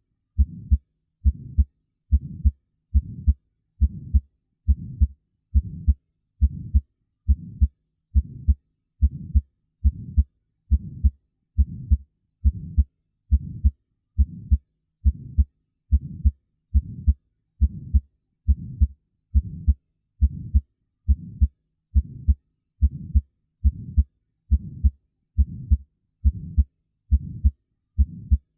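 Human heart auscultated with a stethoscope: a steady, regular heartbeat, a little over one beat a second, with an innocent (physiologic) systolic murmur. This is the soft flow murmur of turbulent blood ejected from the ventricles toward the semilunar valves, and it is generally considered normal, not a sign of heart disease.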